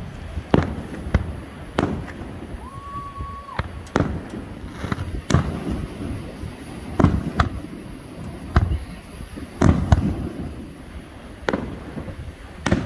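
Aerial fireworks shells bursting in an irregular string of sharp booms, roughly one a second, the bigger ones trailing a low rumble. A brief steady whistle-like tone sounds about three seconds in.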